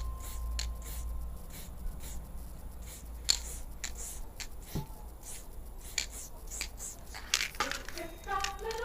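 Spray paint can hissing in many short, quick bursts as fine detail is sprayed, with a few louder spurts.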